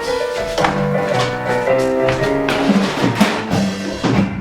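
Music with drums: a run of held instrument notes changing in pitch, over regular drum hits.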